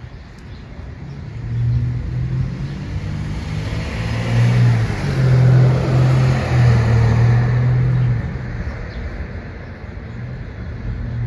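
A motor vehicle passing by: its engine hum and road noise swell over the first couple of seconds, peak midway and fade out about eight seconds in.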